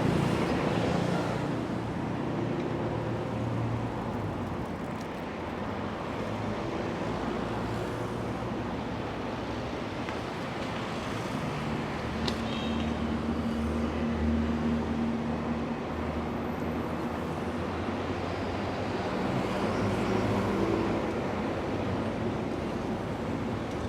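City street traffic: a steady wash of cars and other vehicles driving past. A nearer engine's low hum swells for a few seconds past the middle, and a single sharp click sounds about halfway through.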